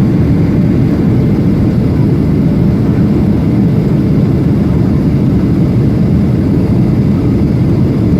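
Steady low rumble of engine and airflow noise inside the cabin of a Boeing 737-800 airliner, even throughout with no distinct events.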